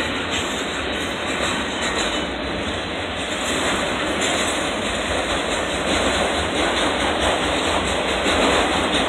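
Loaded freight cars of a passing train, double-stack intermodal well cars and then autorack cars, rolling by close at hand: a steady, loud noise of steel wheels running on the rails.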